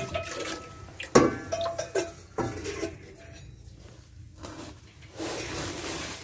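Stainless-steel cooking pots and metal rings knocking and clanking against each other as they are rummaged through in a pile. A few sharp knocks, some ringing briefly, fall in the first two and a half seconds. About a second before the end a steady rushing noise comes in.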